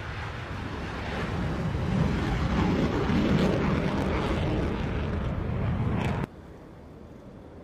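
Military jet flying past, a loud rushing roar that swells to its peak a few seconds in, then cuts off suddenly about six seconds in.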